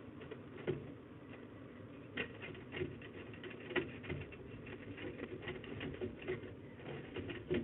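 Irregular light taps and clicks from peregrine falcons on a metal grating as an adult tears at prey and feeds a chick, over a low steady hum.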